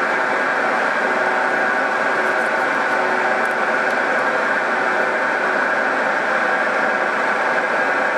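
Milling machine cutting steel: the spinning cutter grinding steadily through a brake caliper mount, with a steady high whine in the noise of the cut.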